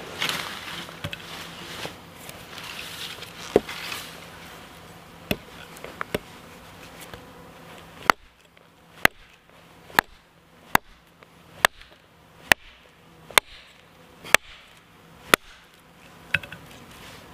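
Hatchet chopping a hazel branch against a wooden chopping stump: a few scattered blows, then, about halfway in, a steady run of about ten sharp blows a little under a second apart.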